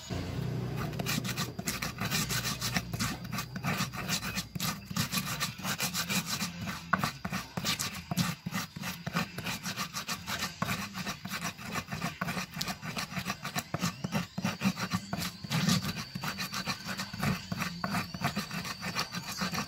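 Stone pestle grinding and crushing ingredients in a rough stone mortar (an Indonesian ulekan and cobek): a dense run of gritty rubbing and scraping strokes, several a second.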